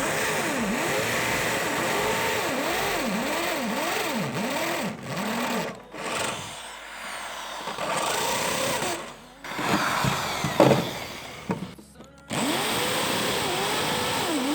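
Electric drill with a thicker bit enlarging a hole in the outer pipe of a double-walled motorcycle exhaust. The motor's pitch dips and recovers over and over as the bit bites into the metal, and the drill stops briefly about three times before running on.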